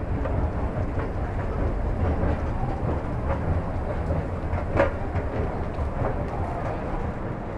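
Escalator running: a steady low mechanical rumble with a sharp click about five seconds in.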